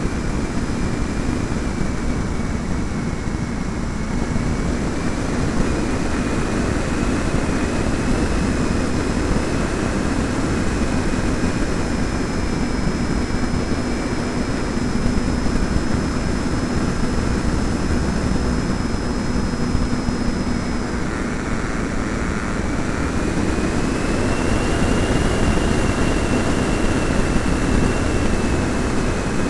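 Wind rushing over a camera riding on an E-flite Pitts electric model biplane in flight, with the motor and propeller whining steadily underneath. A bit after two-thirds of the way through, the whine rises in pitch and the sound gets a little louder as the throttle opens.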